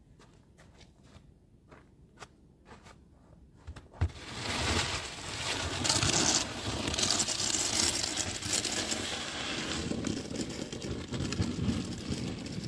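Wide snow pusher shovel pushed across snow-covered concrete. Faint steps at first; about four seconds in the blade knocks down and a long continuous scrape of blade and snow follows.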